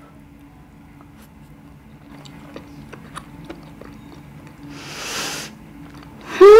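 Faint small clicks at first, then a breathy blow about five seconds in, as a woman cools a steaming boiled dumpling. Near the end comes a loud, hummed "mmm!" that rises and then falls in pitch.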